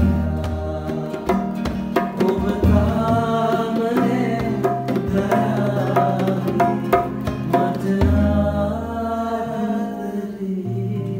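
Live acoustic music: a two-headed barrel hand drum, dholak style, played with deep pitched bass strokes and sharp slaps, accompanying a nylon-string classical guitar.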